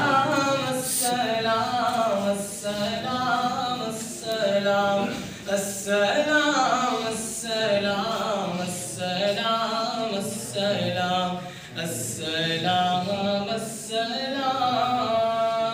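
A man singing an unaccompanied naat in long, gliding phrases, with no instruments.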